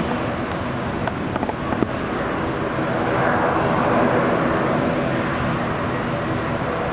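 Jet engines of a Corendon Airlines Boeing 737 running at low taxi power as the airliner taxis past: a steady jet rumble and whine that grows a little louder about three to four seconds in, as the aircraft comes nearest.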